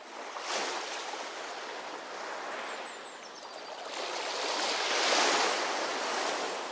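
Ocean surf washing on a shore, a steady hiss of breaking waves that swells loudest about five seconds in.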